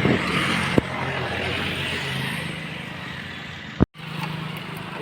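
Motorcycle engine running on the move, a steady hum under road and wind noise that swells during the first couple of seconds. The sound cuts out completely for a moment just before the end.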